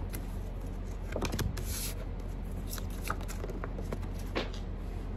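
Tarot cards being shuffled and laid down on a tabletop: light taps and card flicks, with a brief papery rustle about a second in, over a steady low hum.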